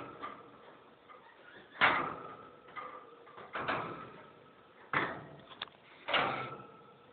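Wire birdcage knocked and rattled five times, unevenly spaced, each knock leaving a short metallic ring.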